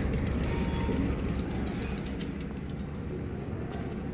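Low steady rumble of a train standing at the station platform, with a few brief bird chirps about half a second in.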